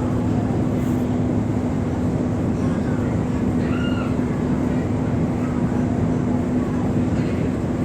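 Engine of a river ferry running steadily at a constant speed, a low even drone with a strong hum.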